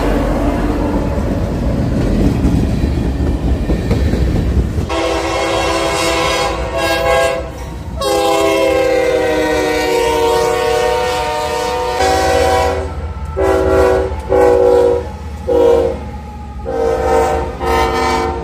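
Diesel freight locomotive passing close by, engine and wheels rumbling on the rails. Then locomotive air horns sound in repeated blasts: one long blast whose pitch sinks slightly as it goes by, then a string of shorter blasts.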